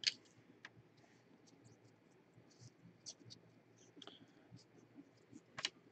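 Trading cards being slid and flipped through a gloved hand: faint scattered clicks and scraping of card on card, with the sharpest clicks right at the start and again near the end.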